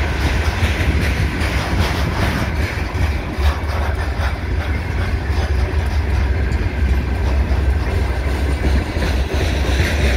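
Freight train of covered hopper wagons rolling past: a steady rumble of steel wheels on rail, with light clicking from the bogies.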